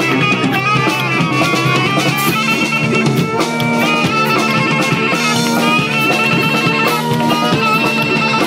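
Live band playing: saxophone and bowed cello holding a melody over a drum kit.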